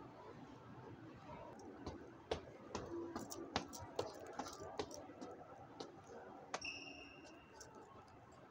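Footsteps going down hard stone stairs, a sharp click at each step, about two a second, over the low murmur of a large terminal hall. A short high beep sounds about two-thirds of the way in.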